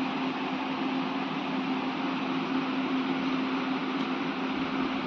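Steady motor hum, one even tone over a constant hiss, with no change in it.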